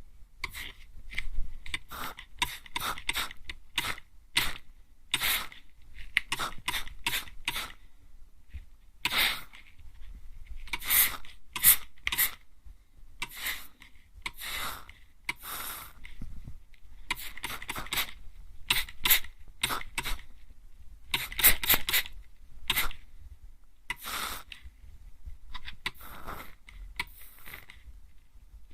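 Hand-pump mist sprayer spritzing water onto an ear, in short sharp sprays, sometimes single and sometimes in quick runs of two to four, with brief pauses between.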